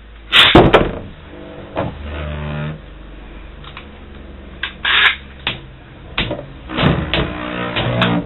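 Irregular clicks and knocks of Beyblade tops and their metal and plastic parts being handled, loudest in a cluster right at the start, with a brief low hum about two seconds in.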